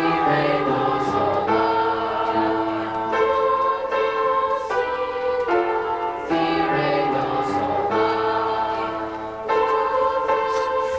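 Middle school choir singing, holding long notes in chords that change every one to three seconds.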